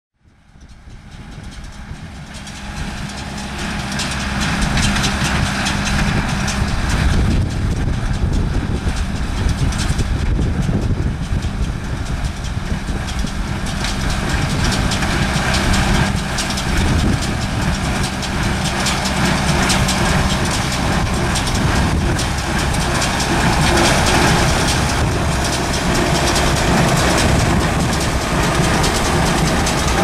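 John Deere 6300 tractor's four-cylinder diesel running steadily under load while pulling a John Deere 328 small square baler in hay, with the baler's mechanism clattering and knocking over the engine. The sound fades in over the first few seconds.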